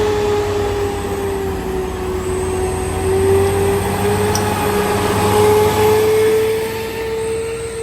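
Heavy truck engine running under load on a steep climb, a low drone with a steady whine over it.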